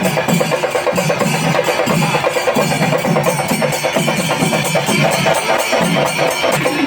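Kerala temple-festival melam: chenda drums beaten in a fast, continuous rhythm with ilathalam cymbals clashing on the beat, dense and loud throughout.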